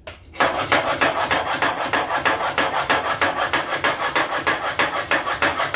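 Plane iron in a honing guide being rubbed quickly back and forth on a wet, coarse sharpening stone: a steady scraping of strokes, about five or six a second, starting about half a second in. The bevel is being ground until a burr forms along the edge.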